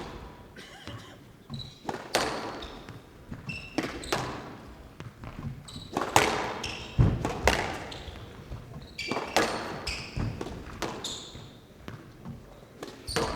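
Squash rally: irregular sharp smacks of racquets striking the ball and the ball hitting the walls, with short high squeaks in between, echoing in the glass court's hall.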